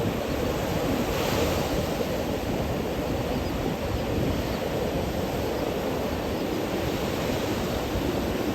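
Ocean surf breaking and washing up a sandy beach, a steady rushing noise with one wave swelling about a second in, and wind rumbling on the microphone.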